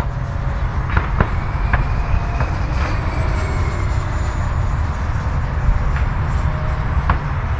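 Faint whine of a distant 70 mm electric ducted-fan RC jet flying past, its pitch rising slightly and then falling, under a steady low rumble.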